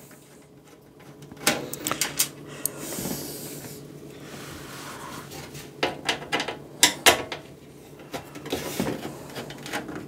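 Perforated steel side panel of a PC case being worked loose from the chassis by hand after its screws are out: a series of clicks and knocks, with a soft scrape about three to five seconds in.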